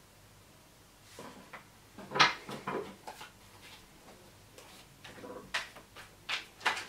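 Tarot cards being picked up and shuffled by hand over a wooden table: an irregular run of soft clicks and taps, the loudest about two seconds in.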